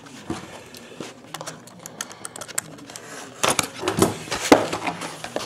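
Sealed trading-card box being opened and handled by hand: a run of small clicks, taps and rustles, with a louder flurry of scrapes and knocks about three and a half to four and a half seconds in.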